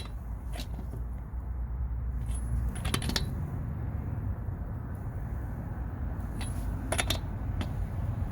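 Scattered metallic clinks and taps as an impact wrench's socket is set onto a lug nut and the tool is handled, a few at a time, over a low steady rumble. The wrench is not run.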